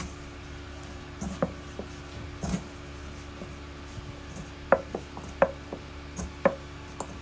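Hands kneading and mixing flour-and-water dough in a metal mixing bowl, with scattered short knocks of hand against bowl, more of them in the second half, over a steady low hum.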